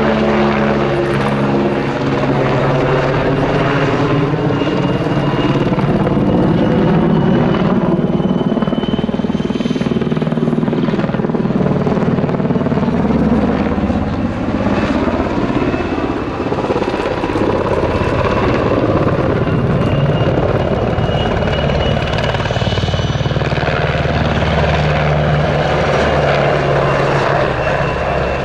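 PZL W-3A Sokol twin-turbine helicopter flying a display, its main rotor beating and its turbine whine shifting up and down in pitch as it manoeuvres and passes.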